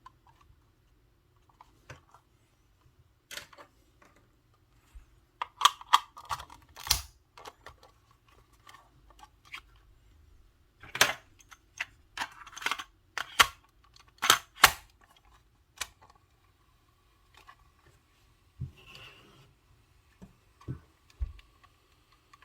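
Irregular sharp clicks and knocks from a cassette Walkman being handled, over a faint steady hum. The clicks come in clusters, busiest in the middle.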